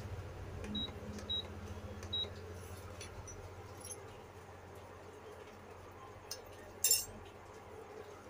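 A spoon clinks against the pot three times while the kadha is being stirred slowly, over the steady low hum of an induction cooktop. A single sharp click comes near the end.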